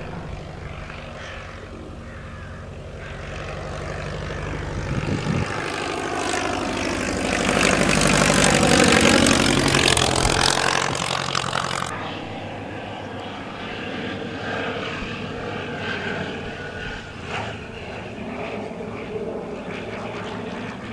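Single-engine light propeller aircraft flying low overhead on landing approach. The engine drone swells to its loudest about nine seconds in and falls in pitch as the plane passes. After an abrupt cut, another light aircraft's engine drones more quietly.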